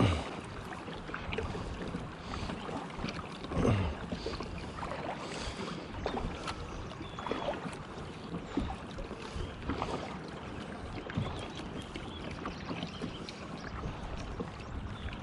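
Kayak being paddled on a river: water swishing and splashing with irregular paddle strokes every second or two over a steady watery wash.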